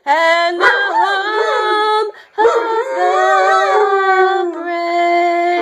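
Weimaraner howling in long, drawn-out notes whose pitch wavers, with a short break about two seconds in.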